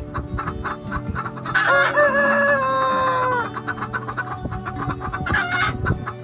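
A rooster crowing once: a long call starting about one and a half seconds in, held for nearly two seconds and dropping in pitch at the end, with clucking around it and a shorter call near the end.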